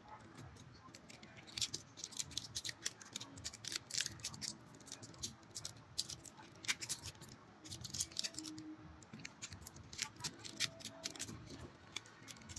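Irregular run of sharp clicks and taps from the opened Oppo A15s phone being handled and pressed by hand, its plastic and metal parts knocking against each other and against the bench.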